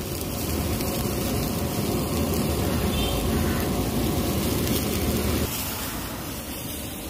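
Cumin seeds and freshly chopped onion sizzling steadily on a hot flat iron tawa during a tadka, over a low rumble that eases about five and a half seconds in.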